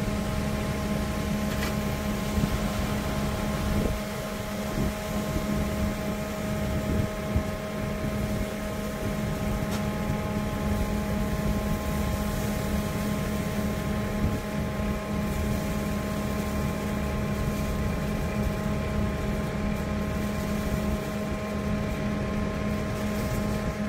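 Fendt tractor engine running at a steady speed, a constant hum with fixed tones, while the grain bag extractor's auger is folded down. A couple of faint ticks come through.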